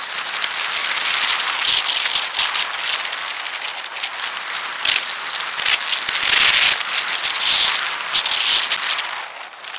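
Wind rush and rattle on a moving camera's microphone during a ride, played sped up, so it comes out as a loud hissing crackle that swells and dips, with many small clicks through it.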